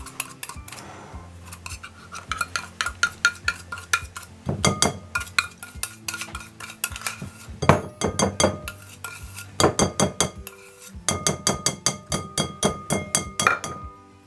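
Wire whisk tapping and scraping against a small stainless steel mixing bowl as egg-yolk mixture is scraped out, in quick runs of metallic clinks with the bowl ringing briefly after the taps.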